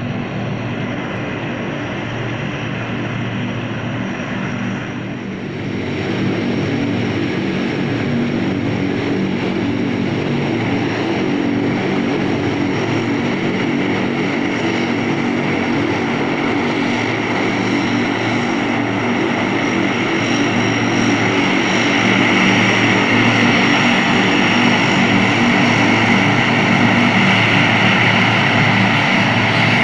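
C-130 Hercules turboprop engines running with a steady drone and hiss, growing louder about five seconds in and again past twenty seconds.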